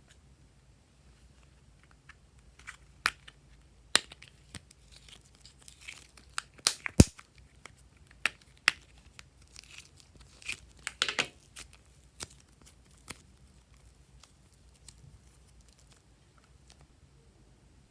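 Slime being worked by hand, giving scattered sharp pops and crackles, with a dense cluster in the middle and quiet stretches before and after.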